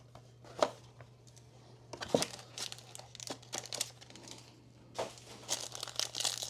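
Trading-card pack wrapping being crinkled and torn open by hand, in scattered handling noises that grow busier about two seconds in and again near the end.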